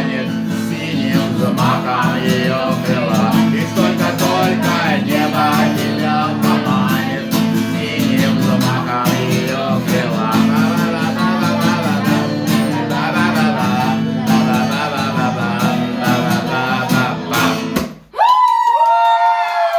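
Guitar-accompanied song with singing. About eighteen seconds in the music stops and a dog howls, one drawn-out call that sags in pitch.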